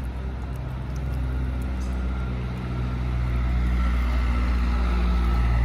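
A motor vehicle's engine running steadily nearby with a low hum, growing louder over the last second or two.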